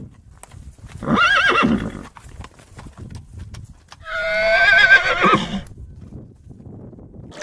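A horse neighing twice, each whinny a loud quavering call, with hooves clip-clopping between the calls.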